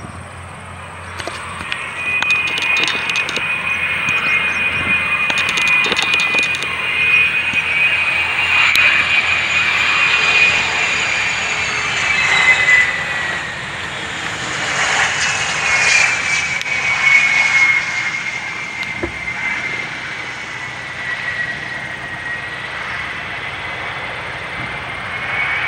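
Airplane engines running with a steady high whine that slides down in pitch around the middle and then rises again near the end, over a broad engine rush.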